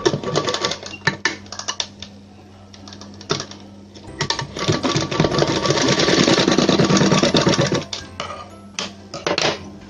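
Industrial sewing machine stitching fabric in short runs: a brief run of rapid needle strokes at the start, then a longer fast run of about four seconds in the middle. A steady hum lies under it throughout, and a few sharp clicks come near the end.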